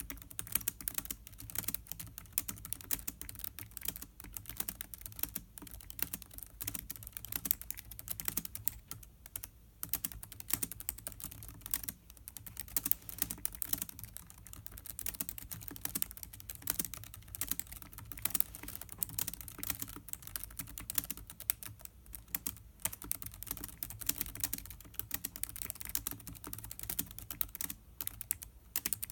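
Continuous typing on a 2016 Lenovo ThinkPad X1 Carbon's built-in laptop keyboard: a fast, dense run of light key clicks with brief pauses now and then.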